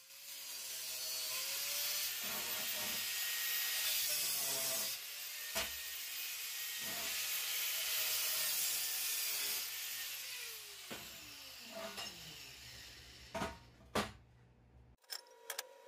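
Angle grinder with a thin cutting disc cutting through a steel rectangular tube: a loud, steady hiss with a high whine. About ten seconds in it is switched off and the motor winds down with a falling pitch, followed by two sharp knocks.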